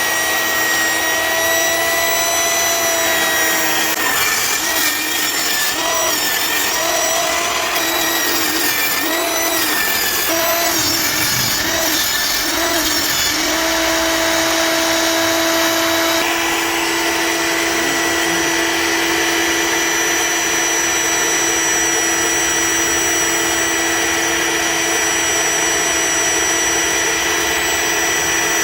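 Table saw running while ripping a cedar 1x6 board lengthwise, a steady motor and blade whine. Its pitch wavers and dips for several seconds in the first half, then holds steady.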